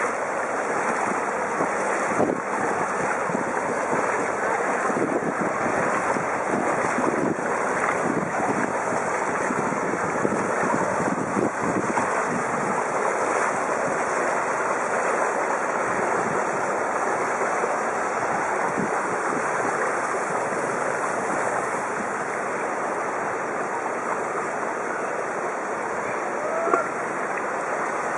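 Bicycle wheels rolling through shallow floodwater, a steady rushing, splashing hiss of moving water. A brief squeak about a second before the end.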